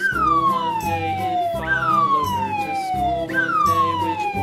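Siren-like electronic sound effect: a high tone that jumps up and then slides steadily down, repeated three times about every 1.6 seconds, over background music with a steady beat.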